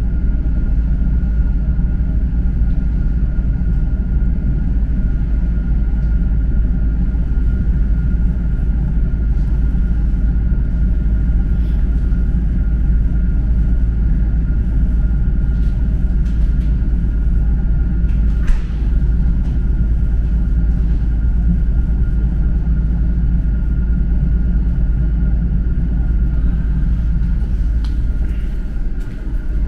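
Inside a moving electric suburban train: steady low rumble of the wheels and running gear on the rails, with a faint steady high whine above it. One sharp knock about two-thirds of the way in.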